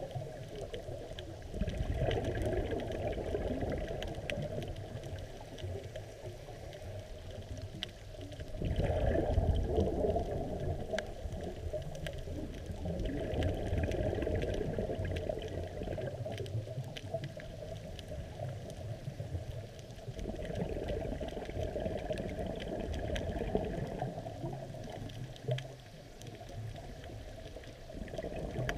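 Scuba diver's exhaled bubbles from the regulator, heard through an underwater camera housing. They rumble and gurgle in surges a few seconds long, about every six seconds, with quieter breaths in between. Faint scattered clicks run underneath.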